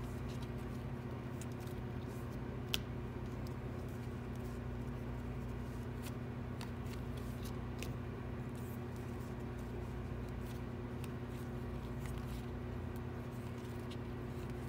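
Baseball cards flipped through by hand, one card slid off the stack after another: soft scattered clicks and slides of card stock, with one sharper click a little under three seconds in, over a steady low hum.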